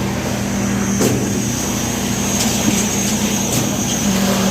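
Concrete pump and poker vibrator running steadily during a slab pour: a constant engine drone, with a few sharp knocks.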